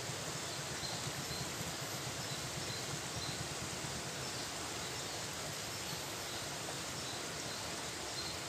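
Steady rural outdoor ambience: an even hiss with faint, short high chirps repeating every second or so.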